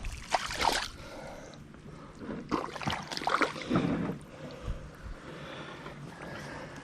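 Water sloshing and splashing in irregular bursts as feet and a small one-man boat are pushed through shallow, muddy pond water, with a thud about two thirds of the way in.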